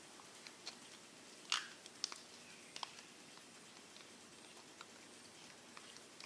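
Glue slime activated with Tide being stirred in a bowl as it starts to come together: faint, scattered sticky clicks and squelches, the loudest about a second and a half in.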